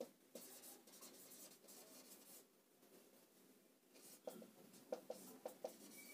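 Marker pen writing on a whiteboard: faint scratchy strokes, a lull about two and a half seconds in, then a run of short, sharp strokes near the end.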